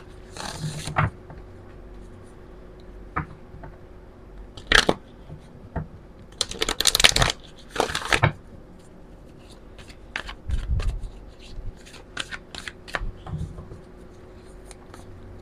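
A deck of oracle cards shuffled by hand, in several short bursts of cards sliding and slapping together, with light clicks and taps between them.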